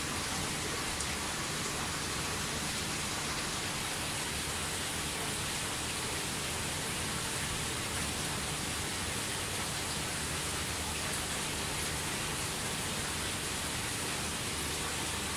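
Steady, even rushing hiss of aquarium water circulation.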